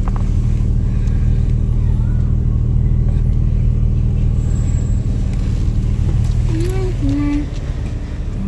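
Steady low hum of a car's engine and road noise heard from inside the cabin. Near the end there are a few short, pitched vocal sounds.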